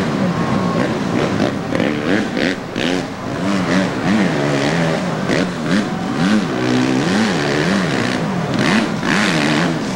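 Off-road vehicle engine revving up and down over and over in the mud, its pitch rising and falling in quick repeated sweeps.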